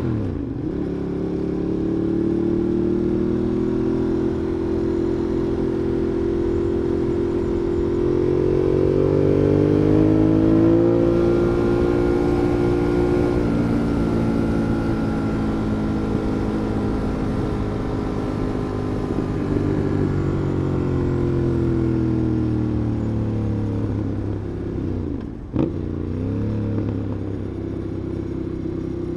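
A Ducati Monster 821's 821 cc L-twin engine, heard riding along from a backpack microphone. The engine note climbs for about ten seconds, then eases off and sinks slowly for a long stretch. About 25 seconds in there is a short break in the note with a click, and then the engine picks up again.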